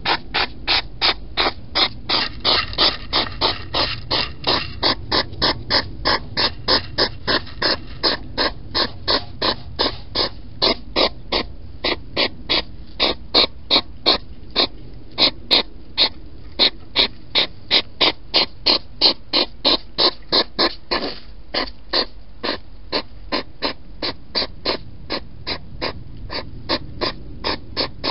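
Hedgehog eating right at the microphone: loud rhythmic chomping, about three bites a second.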